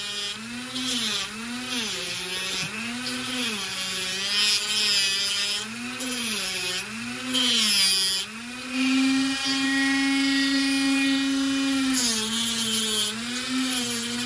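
Dremel rotary tool on a flex shaft, its cutting wheel slicing into a plastic scope cap. The motor's whine sags in pitch again and again as the wheel bites under load, holds steady at a higher pitch for a few seconds, then sags again near the end.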